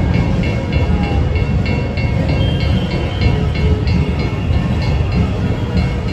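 Loud procession drumming: dense, deep drum beats with a sharper stroke repeating about three times a second.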